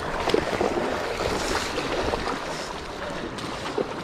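Steady rushing of the Kenai River's current, with wind buffeting the microphone.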